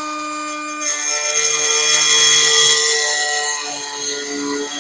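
Makita XCM01 18-volt cordless 3-inch cut-off tool running at full speed with a multi-material blade. About a second in, the blade bites into a rock and a loud gritty grinding hiss takes over, over the motor's steady whine, as it cuts through stone.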